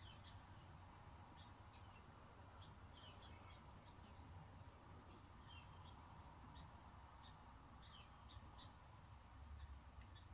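Faint, scattered short bird chirps, high-pitched and irregular, over a quiet background with a low rumble.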